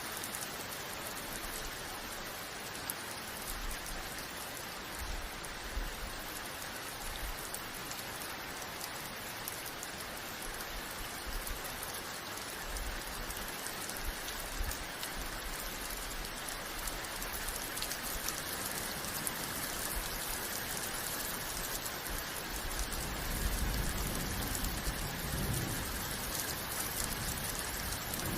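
Steady rain falling, an even hiss of drops on surfaces, with low rumbles swelling in a few seconds before the end.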